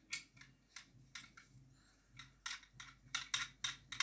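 A string of small hard plastic clicks and taps as a GoPro Hero 8 camera is handled and fitted onto a small tripod mount, the clicks coming closer together in the second half.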